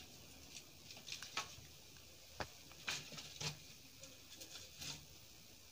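Firewood crackling faintly in a wood-burning brick stove: a few small, irregular pops and clicks over a soft hiss.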